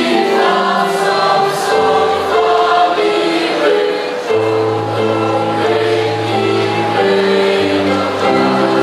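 Mixed school choir singing in parts with piano accompaniment, the notes held steadily and the chords changing every second or so.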